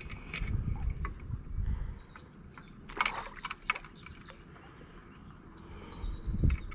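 Wind buffeting the microphone as an uneven low rumble, with scattered sharp clicks and handling knocks, the biggest cluster about three seconds in.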